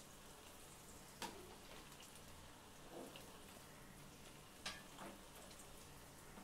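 Faint sizzle of rice-flour bonda batter deep-frying in hot oil, with two sharp pops, one a little over a second in and one past the middle.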